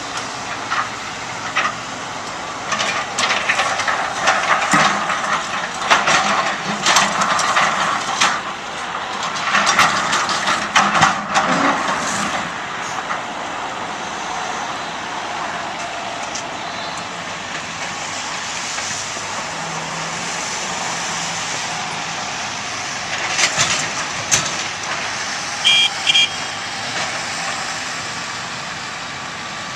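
Heavy construction machinery running steadily, with two spells of clattering and banging as concrete chunks are dropped into a steel roll-off container: a long one in the first half and a shorter one near the end.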